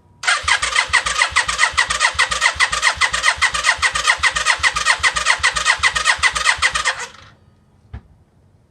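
Electric starter cranking a Yamaha Virago XV535's V-twin engine with its spark plugs removed, so it spins over in rapid, even pulses without firing. It turns over strongly for about seven seconds, then stops suddenly, with a single click about a second later. The strong, even cranking shows the once-seized engine turning freely after its rebuild.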